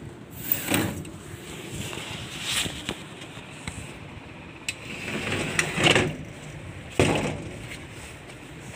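Scrapes and knocks of wooden doors being moved by hand, four or five of them, the sharpest bump about seven seconds in, over the rustle of a hand-held phone.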